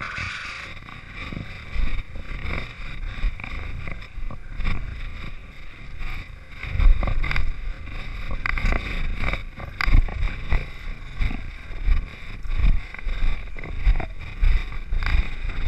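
Footsteps in snow at a steady walking pace, about one and a half steps a second, heard as low thuds through a body-worn GoPro. Clothing brushes against the camera near the start.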